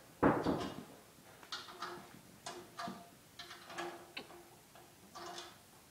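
Drum kit struck with sticks: one firmer hit just after the start, then soft, irregular taps, each leaving a short ringing tone.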